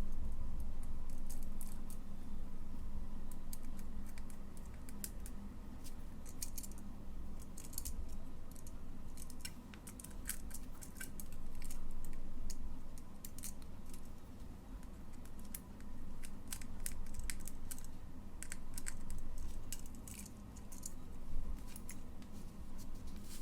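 Scattered light clicks, taps and scrapes of small electrical switches, wires and hand tools being handled during wiring work, over a steady low background rumble.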